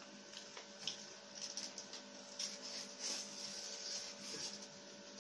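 Eating sounds: paper-wrapped chicken-egg rolls being bitten and chewed, with the paper wrapping rustling in the hands. Irregular soft rustles and clicks, busiest from about two and a half seconds in, over a faint steady hum.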